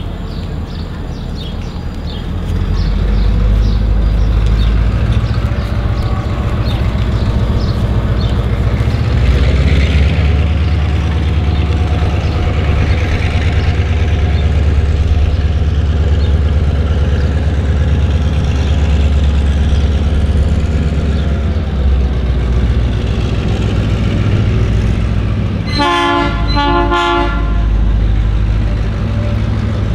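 Diesel locomotive engine rumbling steadily as a passenger train approaches, growing louder a few seconds in. Near the end the locomotive sounds two short horn blasts.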